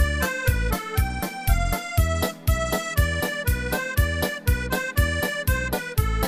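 Background music: a melody of held notes over a steady, quick beat.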